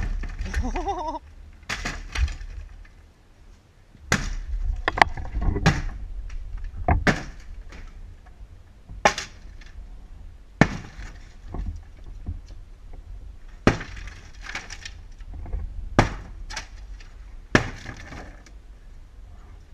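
Wooden privacy fence being smashed apart: about ten separate blows, a second or two apart, each a sharp crack of boards splintering, with panels crashing down.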